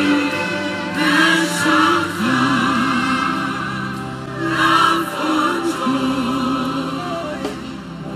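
Large mixed choir singing a gospel worship song in long, wavering sustained notes, with a low accompaniment coming in about two seconds in.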